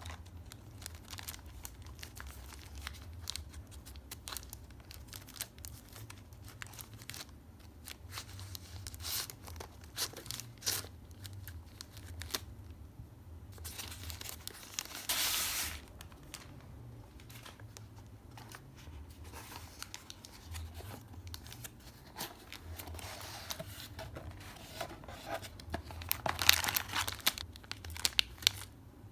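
Packaging being opened by hand: tearing and crinkling with many small clicks and taps, a longer tear about halfway through, and a cluster of sharp clicks near the end.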